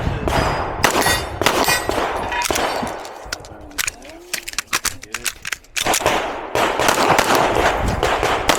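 Pistol shots fired in strings, mixed with steel targets clanging and ringing when hit. The shooting thins out for a couple of seconds about halfway through, then picks up again.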